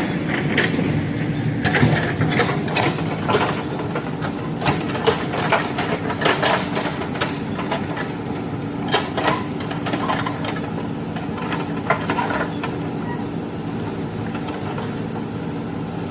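Backhoe loader's diesel engine running steadily, with irregular metallic clanks and knocks over it, densest in the first half.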